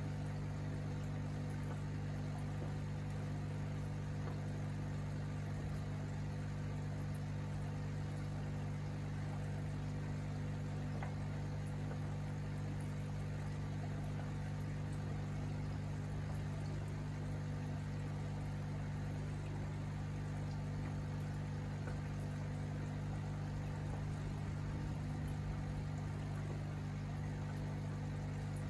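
Aquarium air pump humming steadily, with faint bubbling from the aerated tank.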